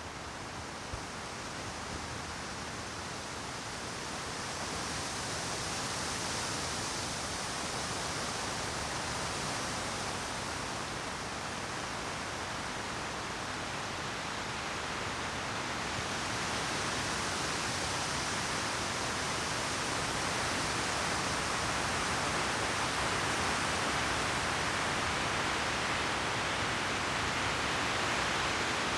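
Wind rushing through conifer treetops, a steady hiss that swells and eases in slow gusts, growing stronger around the middle and again in the second half.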